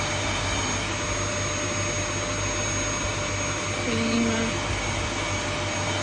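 Dyson cylinder vacuum cleaner running steadily: a constant motor tone over rushing air.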